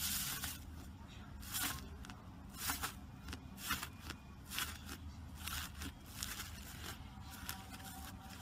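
Fingers pressing and squeezing soft, fluffy green slime in a tub, making short crackly pops at uneven intervals, about one or two a second.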